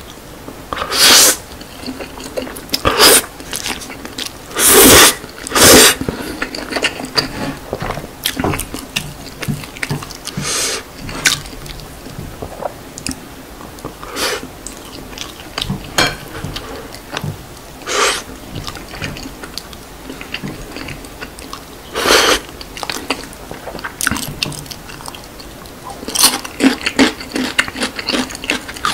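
Close-miked eating of jjajang noodles in black bean sauce: wet chewing and mouth sounds, with a few louder slurps and smacks between bites.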